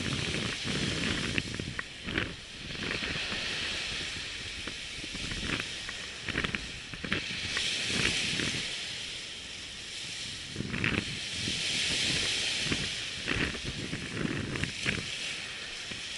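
Surf washing on a beach: a steady hiss that swells and fades, with wind buffeting the microphone and scattered short clicks and knocks.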